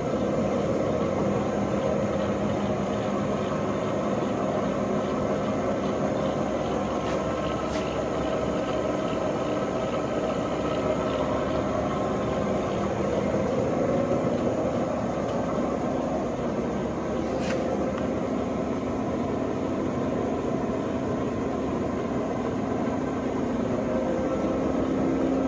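Monarch 612 tool room lathe running with its spindle turning at about 330 RPM and the carriage power feed engaged. The geared drive gives a steady hum with an even gear whine, and there is an occasional light click.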